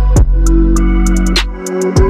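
Background music: an electronic hip-hop beat with a deep, sliding bass.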